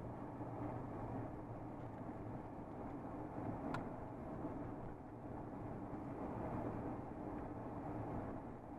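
A motor vehicle driving along a road: steady engine hum and road noise, with a single faint click a little under four seconds in.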